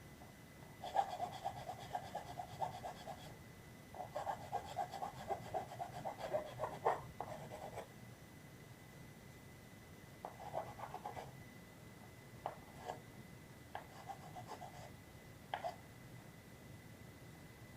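Hand sanding a 3D-printed plastic part: runs of quick back-and-forth rubbing strokes with short pauses between them, and a few single scrapes.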